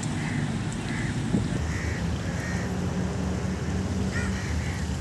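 Short bird calls repeating every second or so, with a quick cluster of them near the end, over a steady low rumble.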